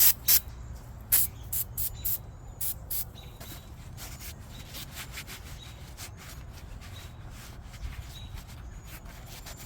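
Degreaser sprayed in about nine short hissing bursts over the first three seconds, followed by quieter rubbing as the part is wiped.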